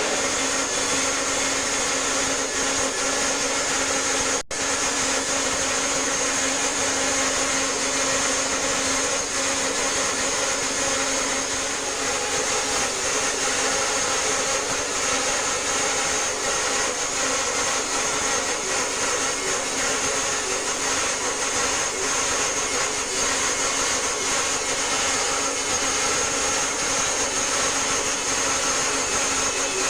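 Home-built bandsaw mill running steadily, with a constant machine noise, a low hum and a high-pitched whine. There is a momentary dropout about four and a half seconds in.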